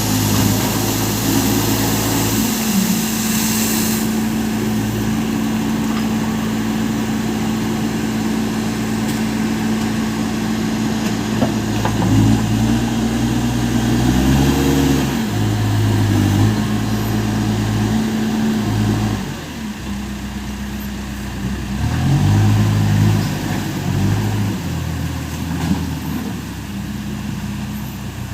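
Case Super M backhoe loader's diesel engine running, its speed rising and dropping back a few times. A hiss runs over it for the first few seconds.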